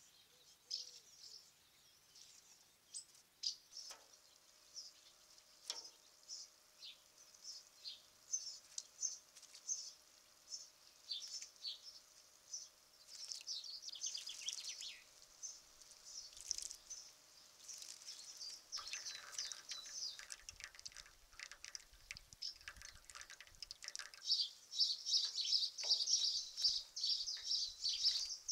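Small songbirds chirping and singing, a steady stream of short high-pitched calls and song phrases that becomes denser near the end.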